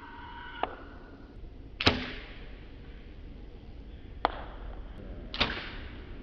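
Arrows shot from compound bows and striking targets: four sharp snaps and thwacks in two pairs about a second apart. The second of each pair is the louder, with a short ring.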